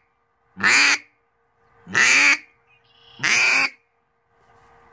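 Hobo duck call blown three times, sounding three separate quacks, each short and falling in pitch, with short gaps between them.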